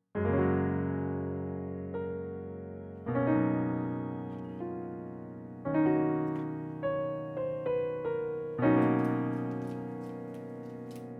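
Solo piano playing a slow, gentle melody, with a new chord struck about every three seconds and single notes ringing out between them.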